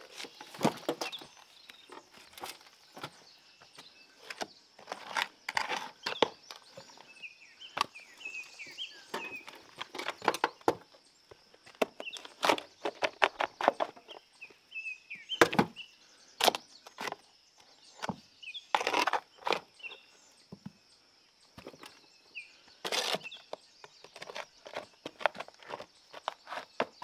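Irregular scrapes and knocks of barn rubble and old wood being dug out and moved by hand, some strokes sharp and close together, others spaced by a second or more.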